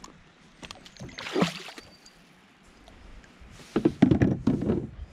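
Water splashing beside a plastic kayak as a small pike is released, with a few sharp knocks against the hull. A first splash comes about a second and a half in; the loudest splashing and knocking come in the last second or so.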